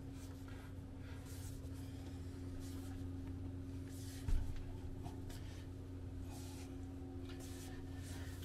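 Hands pressing and rubbing along the rim of a drop-in sink on a wooden countertop, bedding it into putty tape: a series of brief rubbing strokes over a steady low hum, with one thump about four seconds in.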